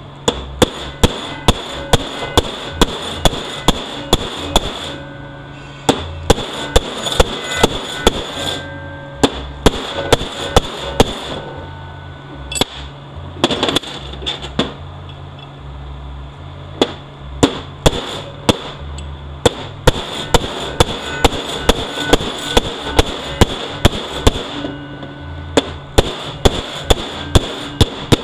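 Hammer tapping a bushing driver to drive a bushing into a 6L80E transmission part, metal on metal, in runs of about two to three blows a second with short pauses between runs.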